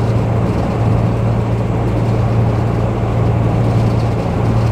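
A 2018 Coachmen Leprechaun Class C motorhome cruising on the interstate, heard from inside the cab: a steady low engine drone under a broad rush of road and wind noise.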